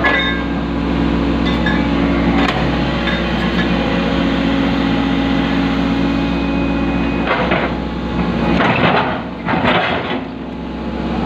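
Excavator diesel engine running steadily with its hydraulics working, heard from inside the cab. In the second half come several loud scrapes and knocks as the steel bucket pushes against a precast concrete culvert section.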